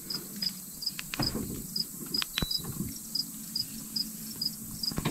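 An insect chirping in a steady rhythm, about two short high chirps a second, with a few faint clicks and knocks.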